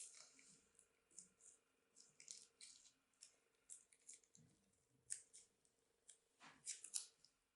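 Crunchy slime with beads being squeezed and worked by hand: irregular crackles and clicks with a few soft squelches.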